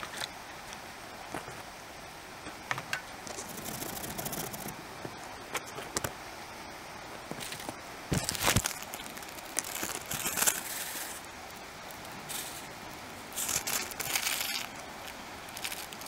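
Food and plastic packaging being handled on a table: bursts of crinkling and rustling, scattered light taps and clicks, and one heavier thump about eight seconds in.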